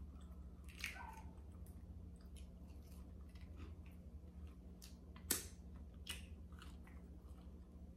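Close-miked chewing and soft mouth clicks of someone eating fried food, with one sharper click about five seconds in, over a steady low hum.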